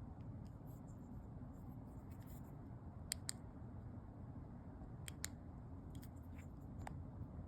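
Faint clicks of the Brinyte PT16 flashlight's switch being pressed to change brightness: two quick pairs of clicks about two seconds apart, then a few single clicks, over a low steady background hum.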